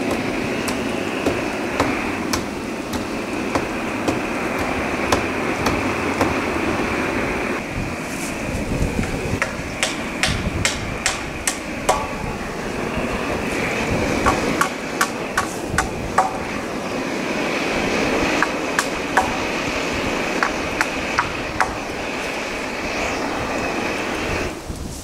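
Irregular hammer blows and knocks on a wooden roof, fast in a cluster near the middle and sparser later, over a steady rushing noise that cuts off abruptly near the end.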